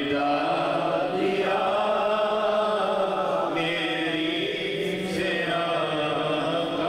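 Men chanting a devotional naat without instruments, in long, drawn-out notes that waver slowly in pitch.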